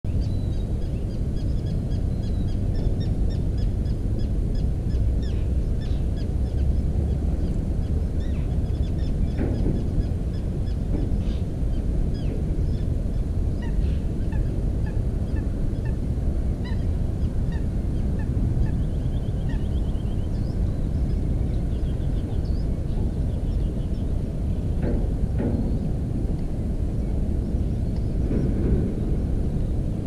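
Steady low rumble like wind on the microphone, with many short, high bird chirps and calls scattered throughout and a brief rapid trill about two-thirds of the way in.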